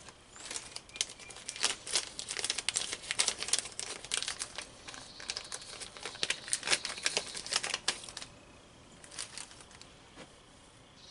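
Thin plastic parts bag crinkling as it is handled, in quick crackles that stop about eight seconds in.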